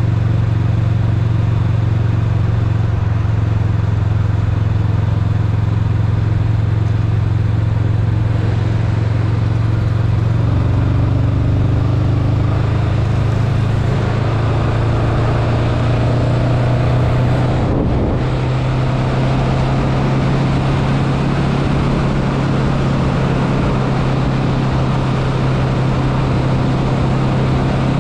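Honda Rebel 500's parallel-twin engine running steadily at cruising speed in sixth gear, heard from the rider's seat with steady wind and road rush. The engine note shifts up a little around the middle.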